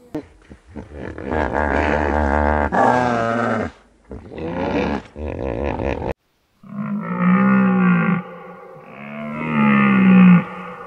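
Loud animal calls: a long wavering call over the first few seconds, then, after a short break, a string of lower, arching calls.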